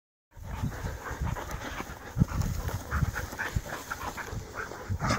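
Dogs panting quickly as they trot about, with uneven low thumps, the loudest about two seconds in.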